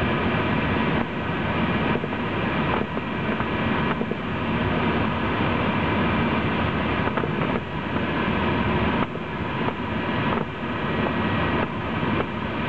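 Steady rush of airflow over the canopy, heard inside the cockpit of a Duo Discus two-seat glider flying fast, with no engine running.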